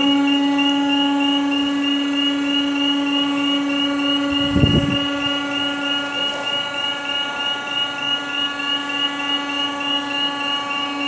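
A machine running with a steady, high-pitched motor whine. A short knock comes about four and a half seconds in.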